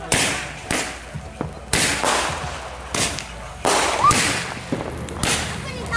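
Fireworks going off: about six sharp bangs from aerial shells bursting overhead, spread over six seconds, each bang trailing off as it echoes.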